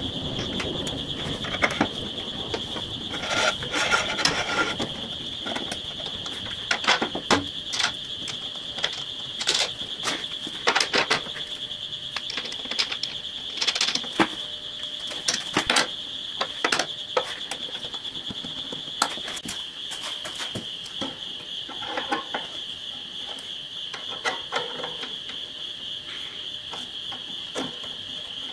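Small steel parts clicking and tapping by hand as a throttle linkage rod and its return spring are fitted into an aluminium clamp block on the firewall. The clicks are irregular and sharp, with a few louder clusters in the first half.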